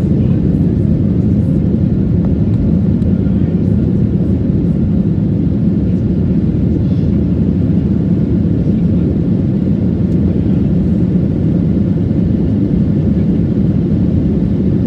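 Steady, loud engine and airflow noise heard inside the cabin of a Boeing 737 in flight after takeoff, a deep even roar with no change in pitch.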